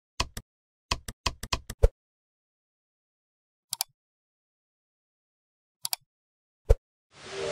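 Phone keyboard and touchscreen tap clicks as a search is typed and results are tapped. A quick run of about eight clicks comes in the first two seconds, then two quick clicks near four seconds, two more near six, and a single click shortly before seven. A noisy wash fades in at the very end.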